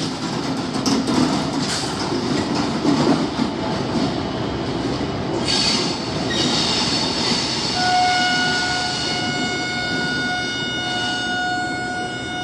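WAP-4 electric locomotive running light, with a rumble and wheel clatter over the rail joints. In the second half it sounds its horn in one long, steady blast.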